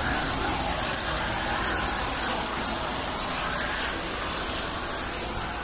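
Heavy rain falling steadily, with many drops hitting close by.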